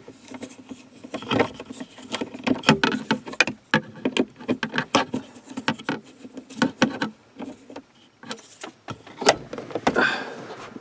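Irregular light clicks and taps of hand work on plastic car interior trim, with a screwdriver bit driving small screws back in.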